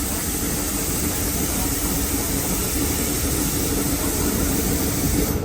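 Steady train noise heard from on board a passenger car: a constant low rumble with a faint steady hum and a high hiss over it. The hiss cuts off suddenly at the very end.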